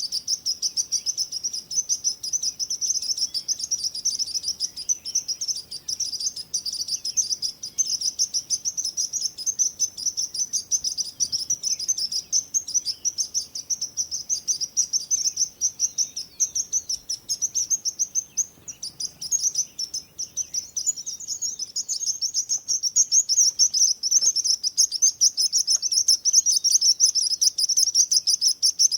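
A flock of small birds chirping in a dense, continuous high-pitched chatter. The chirping thins briefly about two-thirds of the way through, then grows louder toward the end.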